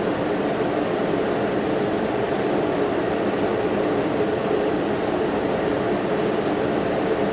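A steady, even hum with hiss, strongest in the low-middle range, with no clicks or changes.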